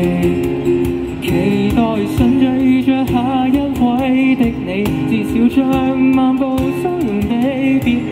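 Live acoustic pop performance: a male voice singing into a microphone, with strummed acoustic guitar and steady cajón beats.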